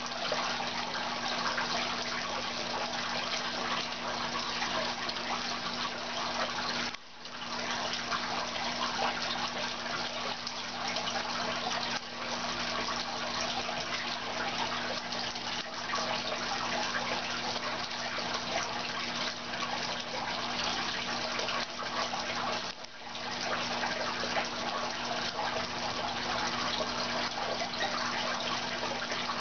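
Aquarium water running and splashing steadily, as from a filter's outflow stirring the surface, over a steady low electrical hum. The sound drops away for a moment twice.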